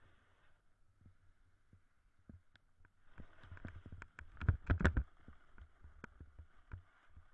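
Snowboard riding over snow: a string of low thumps and knocks with a scraping hiss that sets in about three seconds in, the knocks loudest and most frequent between about four and five seconds in.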